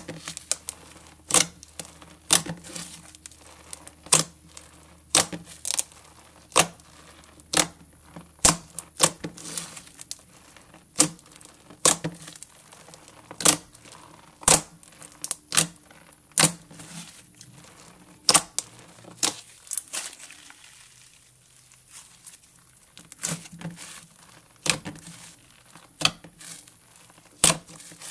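Hands kneading, stretching and pulling apart a fluffy white cloud slime made with expanding snow, giving irregular sharp crackling pops and tearing sounds about once or twice a second, with a quieter stretch about two-thirds through. The crisp crackle is the 'sizzle' that a clear glue base gives cloud slime.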